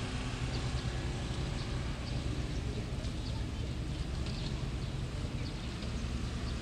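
An engine running steadily with a low, even hum, under faint outdoor background noise.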